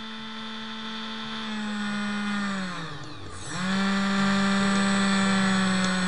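Small brushless outrunner motor spinning with a steady high whine. About three seconds in, the pitch dips sharply as the motor slows, then climbs back and holds steady and louder. It is running with a tie wrap on its bell as a trial balance weight, being stepped round to find the out-of-balance point.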